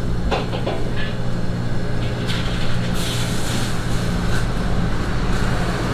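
A steady low mechanical hum under a rushing noise, with a few light clicks about half a second in and a brief hiss a little past the middle.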